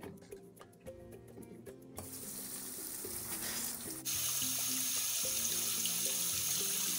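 Kitchen tap running onto grapes and cucumbers in a plastic bowl, rinsing the fruit. The water starts about two seconds in and jumps suddenly louder about four seconds in, then runs steadily.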